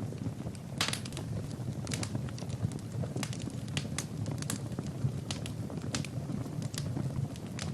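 Wood fire burning in a fireplace, crackling, with irregular sharp pops a few times a second over a steady low rumble of flames.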